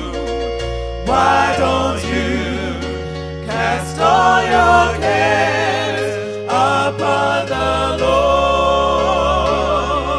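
Gospel music: voices singing with vibrato in phrases over a sustained bass line that changes note every second or two.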